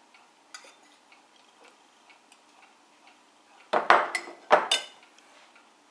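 Faint clicks of a fork on a ceramic plate while eating, then two loud clattering knocks of crockery on a desk about four seconds in, half a second apart.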